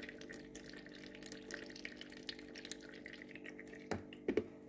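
Coconut milk trickling and dripping through a fine-mesh strainer and cloth into a bowl, faint scattered drips over a steady low hum, with a couple of louder clicks near the end.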